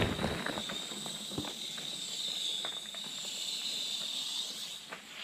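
Bicycle CO2 cartridge inflator hissing as the gas discharges through the valve adapter, a steady high whistling hiss with a few light clicks of handling, dying away near the end. The rider suspects the cartridge had overheated or expired.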